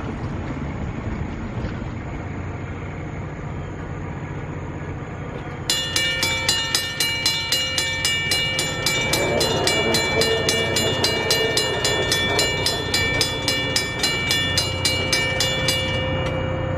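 A railroad grade-crossing warning bell starts about six seconds in, ringing with rapid, evenly spaced strikes, and stops shortly before the end. Under it runs the low, steady rumble of an approaching train.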